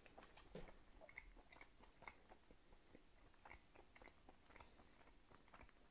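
Faint chewing of a bite of tender sous-vide-cooked beef, a few small soft mouth clicks in near silence.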